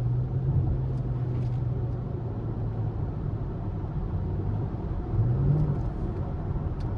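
A Chevrolet Camaro SS's V8 engine runs at a steady cruise, its drone settling a little lower after about two seconds, then rising briefly about five seconds in before easing back.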